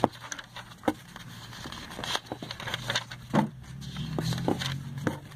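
Glossy catalogue pages being handled and turned: a handful of short paper clicks and rustles, over a low hum of passing street traffic that grows somewhat in the second half.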